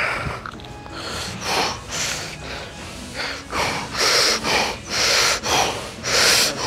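A man breathing hard after a heavy set of high rows: rapid, loud breaths in and out close to a clip-on mic, coming stronger and closer together in the second half.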